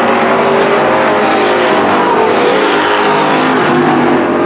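Dirt-track street stock race car engines running at speed, several at once, their pitches rising and falling slightly as they go around the oval.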